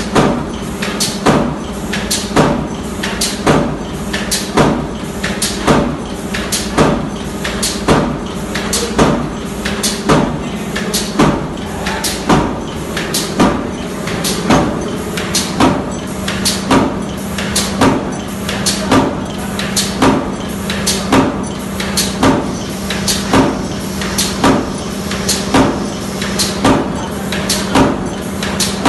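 Flywheel-driven mechanical power press punching razor-blade tape from galvanised steel strip: sharp metallic strikes about once a second, over a steady hum of running machinery.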